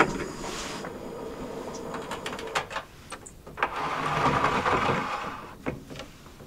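Light knocks and clicks of a metal cooking pot being handled on a portable gas stove, loudest right at the start, with a few more about two to four seconds in. Between about four and five seconds there is a soft, hiss-like noise.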